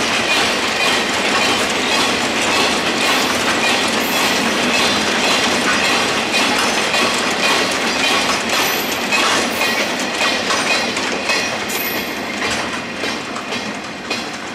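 Empty two-axle Wamu 80000 covered freight wagons rolling over rail joints in a steady clickety-clack, with a few brief high wheel squeals. The clatter fades near the end as the tail of the train draws away.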